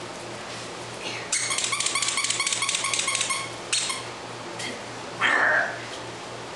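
Airedale terrier puppies playing with plush squeaky toys: a rapid run of high squeaks for about two seconds, a shorter squeak just after, then one louder puppy yelp falling in pitch about five seconds in.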